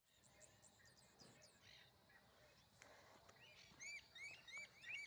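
Faint birdsong: a quick run of thin, high falling notes in the first second and a half, then from about three and a half seconds a string of short arched chirps, two or three a second.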